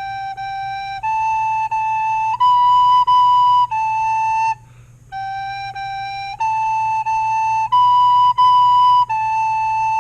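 Soprano recorder playing the beginner phrase G, G, A, A, B, B, A twice: clear, steady tongued notes stepping up and back down one, with a short breath about halfway through.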